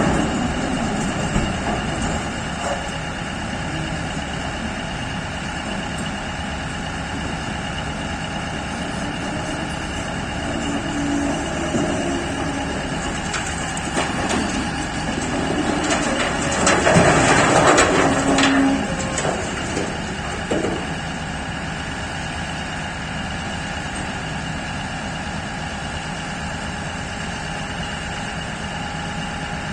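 Heavy mining machinery at work: a P&H 4100 electric shovel and a Belaz haul truck running steadily, with several steady whining tones over a low rumble. A louder burst of noise lasts about three seconds, a little past the middle.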